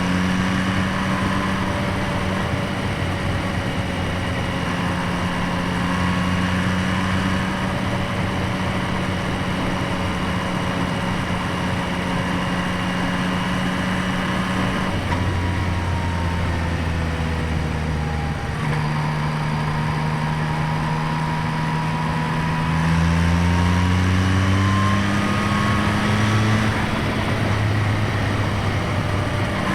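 2025 Yamaha MT-09's inline three-cylinder engine running, heard close up through its intake air box and exhaust. It holds a steady pitch, shifts pitch about halfway through, then climbs gradually near the end.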